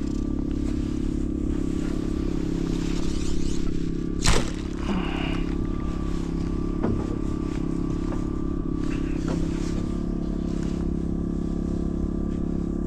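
Steady electric hum of the bowfishing boat's trolling motor, with a single sharp snap about four seconds in and a few faint ticks later.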